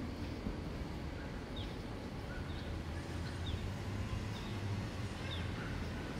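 Short, high, falling chirps repeating about once a second over a steady low rumble of street background noise.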